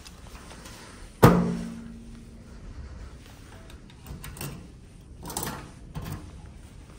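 A luggage locker door shut with a sharp bang and a short ringing tail about a second in, then a key turned in the locker's lock with a few small clicks and rattles near the end.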